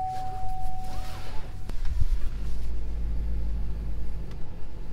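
Chevrolet Silverado pickup heard from inside the cab with its engine running; a knock about two seconds in, and then a low rumble swells and holds. A steady high single tone sounds at the start and stops about a second and a half in.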